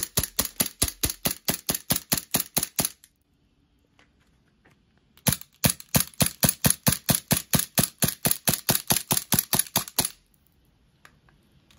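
Glock-style green gas blowback BB pistol fired in rapid, evenly spaced single shots, about five a second. Two long strings of shots are broken by a pause of about two seconds, a few seconds in.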